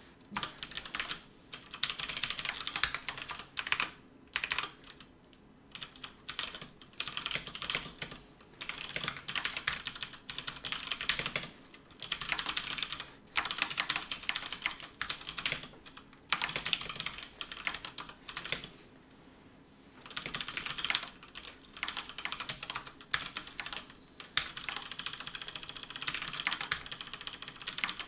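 Fast typing on a computer keyboard, in runs of rapid keystrokes broken by short pauses.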